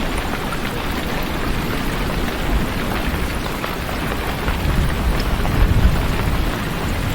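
Heavy rain falling steadily, with a low rumble of thunder swelling about five seconds in.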